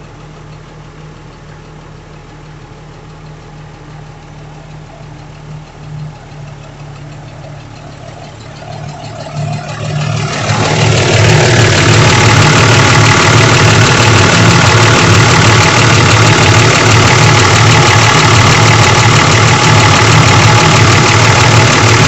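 Truck engine running at a low, steady idle, then about halfway through it gets much louder, as if revved up, and holds there.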